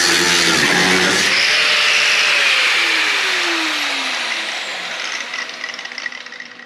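Power cutting tool cutting the car's sheet-metal floor, then released: its pitch falls steadily over about four seconds as it spins down and fades.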